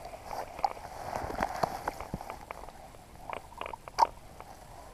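Scattered light clicks and taps of a spinning rod and reel being handled, with a sharper click about four seconds in.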